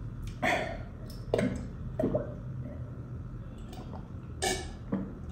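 A person gulping water from a bottle: several separate swallows, each a short wet gulp, over a steady low hum.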